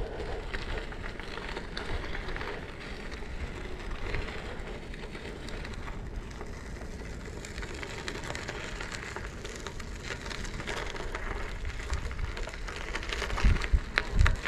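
E-bike tyres rolling over a crushed-gravel trail, giving a steady fine crackling crunch. A few louder low thumps near the end.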